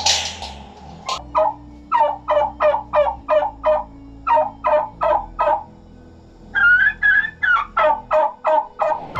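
Royal Palm tom turkey gobbling twice: a long, fast rattling run of short falling notes, then after a brief pause a second, shorter gobble.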